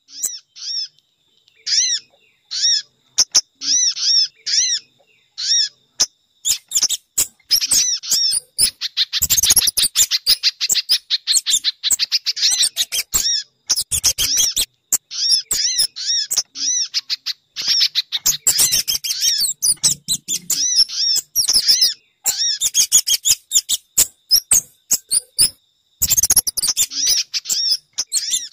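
A bird-lure recording of small birds' high chirps given in quick runs with short breaks, some stretches packed with rapid notes, from a mixed call track of sogon, spiderhunter (pijantung) and kemade.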